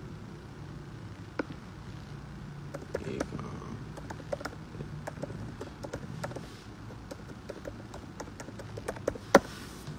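Irregular light taps and clicks of fingers working a smartphone while holding it, typing and navigating to set up an account, with one sharper click near the end, over a low steady hum.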